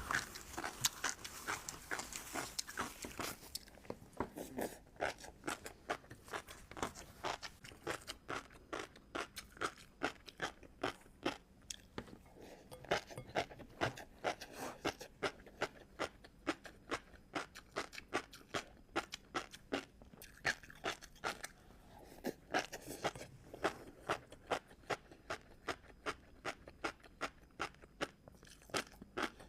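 A person chewing crunchy seafood close to the microphone, with a steady run of crisp crunches a few times a second.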